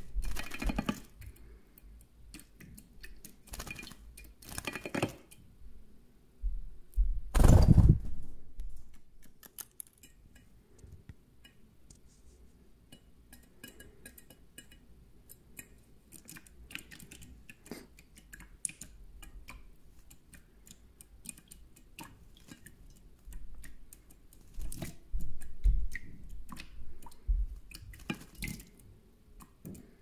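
European goldfinch bathing in a shallow metal dish of water: short bursts of splashing and wing-fluttering in the water, the loudest about seven to eight seconds in, a quieter stretch of small ticks and drips in the middle, then more splashing near the end.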